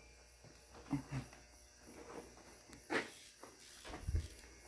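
Quiet workshop room tone broken by a few faint knocks and clicks of hand tools being handled, with a low thump near the end.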